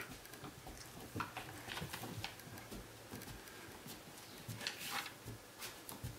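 A rough collie's footsteps as it walks over sheets laid on a tiled floor: scattered soft pats and claw clicks at an uneven pace, with a brief rustle near the end of the walk.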